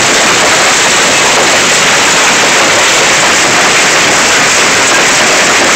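Hailstorm: hail and heavy rain pelting down thick and fast, a loud, dense, unbroken patter that holds steady throughout.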